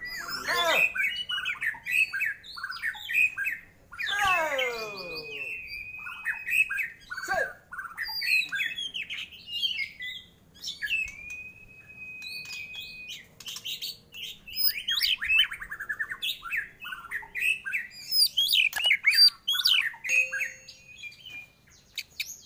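White-rumped shama (murai batu) singing a long, varied song of whistles and fast chattering phrases, including a few long held whistles.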